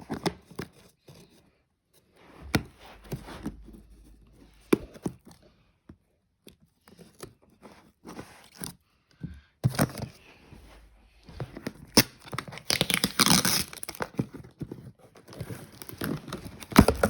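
Cardboard shipping box being torn open by hand: tape and cardboard tearing and rustling, broken up by scattered knocks. The longest, loudest stretch of tearing comes about three-quarters of the way through.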